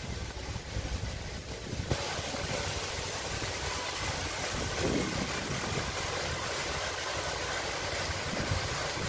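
Fountain jets splashing into an ornamental pond: a steady rush of falling water that starts suddenly about two seconds in.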